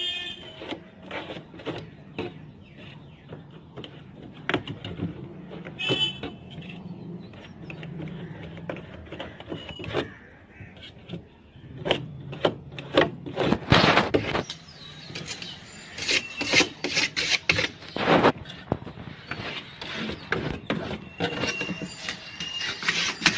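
Adhesive being brushed and rubbed onto a deep freezer's foam inner wall and copper cooling pipes: irregular scratchy rubbing strokes with knocks, loudest in a cluster about two-thirds of the way through, and a few short squeaks.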